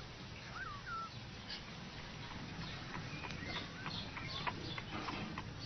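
A cat shut in a wooden puzzle box: two short high chirping calls near the start, then a run of quick clicks and taps as it works at the box and its latch.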